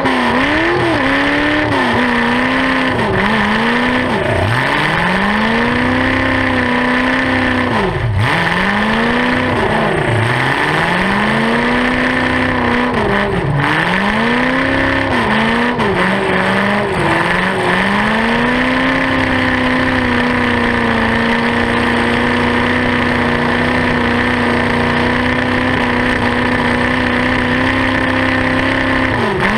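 Demolition derby car's engine running through open, upright exhaust headers, revved up and down again and again as the car manoeuvres, then held at a steady high rev for roughly the last ten seconds.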